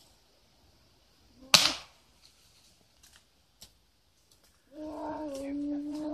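A single sharp pop from a tranquilizer dart gun being fired, about a second and a half in. Near the end a long, steady, single-pitched call begins and holds.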